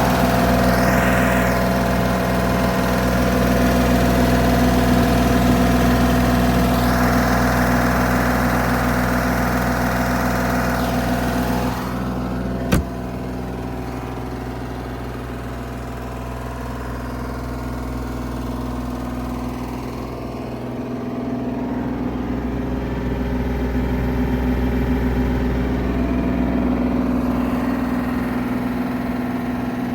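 Bobcat E32 mini excavator's diesel engine running steadily. Its sound swells twice in the first twelve seconds, there is a single sharp click about thirteen seconds in, and then it runs more quietly.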